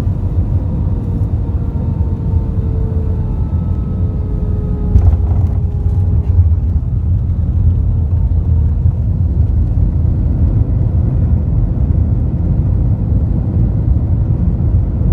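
Airbus A320 cabin noise on landing: a loud, steady low rumble with a few faint tones slowly falling in pitch, and a sharp thump about five seconds in.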